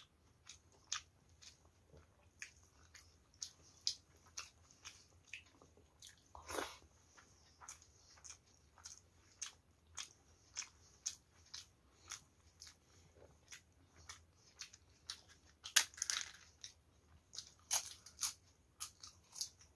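Close-miked chewing: wet mouth clicks about two a second as rice and dal mixed by hand are eaten, with a longer squelch about six seconds in and a few louder crunchy bites in the last few seconds.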